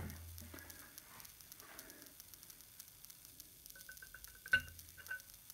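Faint rustling of clothing and handling, then small metallic clinks as a flat steel spanner is fitted onto the valve end of an air cylinder, ending in one sharp click about four and a half seconds in and a lighter one just after.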